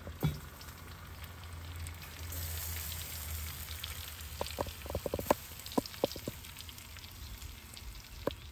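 Rotisserie chicken and a cast iron pan of buttered potatoes sizzling in a kamado grill, with a cluster of sharp pops and crackles about four to six seconds in and one more near the end. A low steady hum from the rotisserie motor runs underneath, and there is a thump just after the start.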